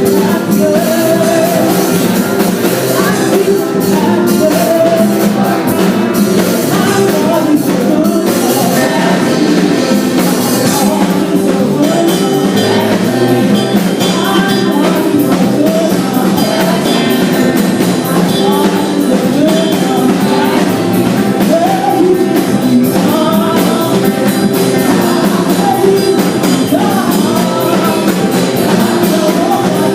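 A band playing a rock-style song with singing over a steady, full accompaniment.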